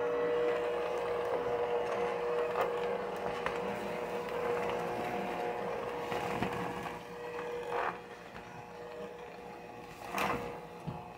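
Electric hand mixer running steadily with a held motor whine as its beaters work butter into a crumbly mixture in a plastic bowl. The whine eases off a little partway through, and the beaters knock against the bowl a few times.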